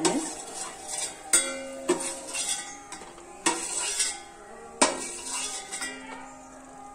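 Metal spoon scraping and clinking against a stainless steel pan as ghee-fried cashews and raisins are scooped out onto a steel plate, with a few sharp clinks, the loudest about one and a half seconds in and near five seconds.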